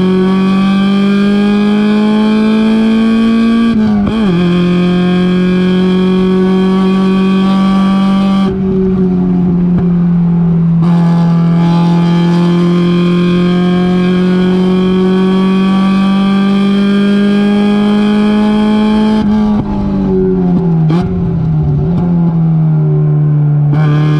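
Mazda race car's engine heard from inside the car at racing speed, pulling hard with its pitch climbing steadily. It shifts up once about four seconds in, and near the end drops back through a couple of quick downshifts with throttle blips as it brakes for a corner.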